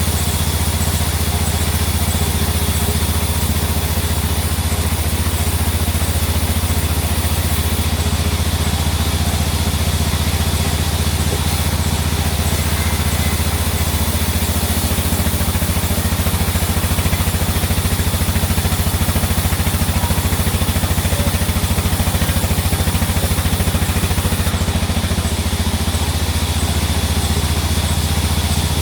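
An engine running steadily at a constant speed: a low, even drone with no change in load.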